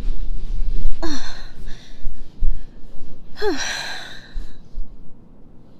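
A woman's breathy non-verbal sighs: two short exhales with falling pitch, about a second in and again past three seconds in, over soft rustling and low thumps, as of someone settling into a seat.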